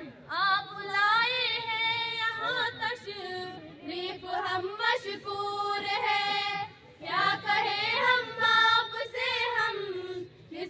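Young women singing an unaccompanied Urdu welcome song into a microphone, with long, wavering, ornamented notes.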